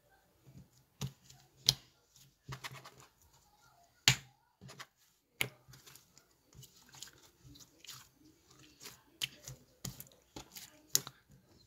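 Slime being squeezed and poked by hand, making irregular sticky clicks and pops, two of them louder than the rest.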